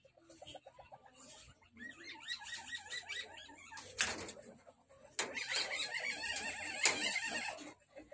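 Small Indian civet in a wire cage during its breeding season, making rapid chattering, chirping calls in bursts, louder in the second half, with a few sharp clicks.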